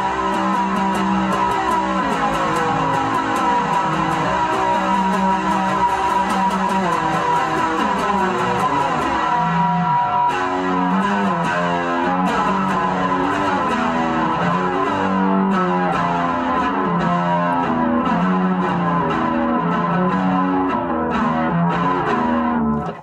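Guitar playing a steady, rhythmic chord riff with no singing, which stops abruptly near the end.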